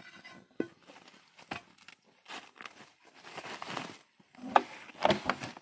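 Footsteps crunching and rustling through dry leaves and broken twigs in irregular steps, with a few sharper snaps, the loudest near the end.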